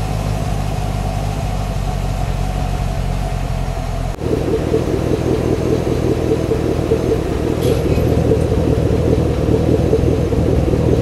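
Camaro SS LS3 V8 idling through its exhaust, steady and low. About four seconds in the sound changes abruptly to a louder, raspier idle as a louder exhaust setting takes over.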